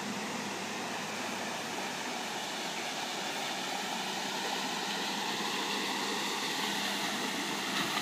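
Steady rush of creek water over a concrete ford, with a Mazda CX-7 SUV driving slowly through it, its tyres sloshing and splashing through the shallow water. It gets a little louder toward the end as the car nears.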